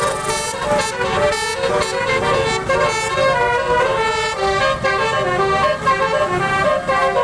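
Telolet basuri multi-trumpet truck horn playing its melody number 9, a rapid tune of loud horn notes stepping from pitch to pitch without pause.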